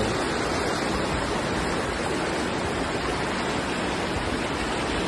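Muddy floodwater rushing down a street, a steady, unbroken rush of water.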